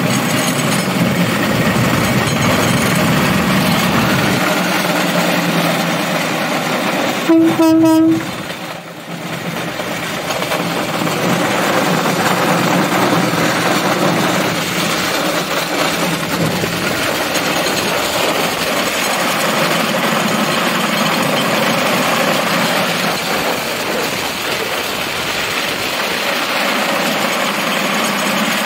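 Rail cart running along the track with a steady engine and wheel noise. About seven seconds in there is one short horn blast, after which the running noise dips briefly and then picks up again.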